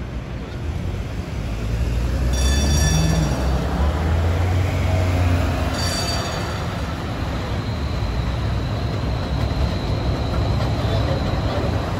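A DC Streetcar light-rail car pulls away from a stop, its low rumble building, and sounds two short, bright warning signals about 2.5 and 6 seconds in. A thin, steady, high whine or wheel squeal follows as it crosses toward and past the listener.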